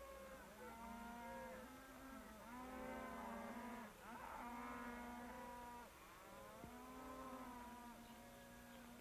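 A herd of cattle mooing faintly, with long moos following and overlapping one another.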